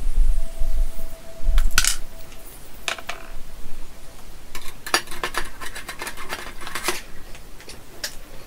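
Scattered light metallic clicks and clinks of small tools and parts being handled at a workbench, coming thickest in a quick run past the middle. Low rumbling bumps in the first two seconds.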